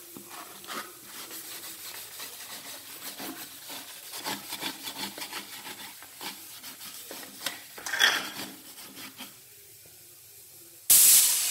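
Scrubber pad rubbing over the wet plastic body of a mixer grinder, in short irregular scouring strokes that die away after about nine seconds. Near the end a brief, loud burst of hiss cuts off abruptly.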